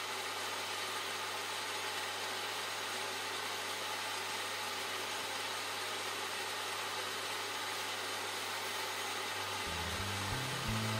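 A running power tool's motor: a steady, even rushing noise with a low hum underneath. Music comes in near the end.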